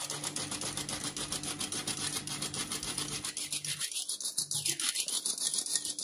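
Stainless-steel hand-operated flour sifter being worked: a rapid, even rasping rhythm as its agitator scrapes dry flour through the mesh.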